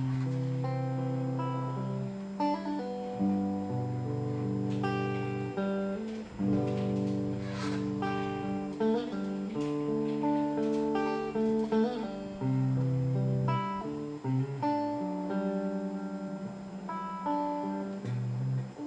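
Electric guitar played through a Fender Frontman 25R solid-state amplifier on its clean channel. Strummed chords ring out and change about every second, mixed with picked single notes.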